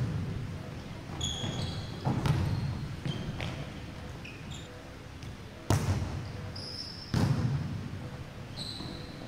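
Volleyball being hit during a rally: three sharp hits a second and a half to three and a half seconds apart, each ringing on in the reverberant sports hall.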